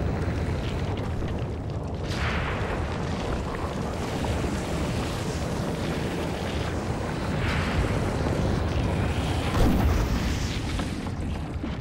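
Underwater volcanic eruption: a deep, continuous rumble of lava breaking out on the sea floor, with several hissing surges, the loudest near the end.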